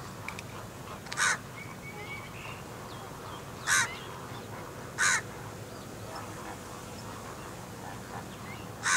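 A bird gives four short, loud calls, about a second in, near four and five seconds, and again at the very end, over faint steady outdoor background.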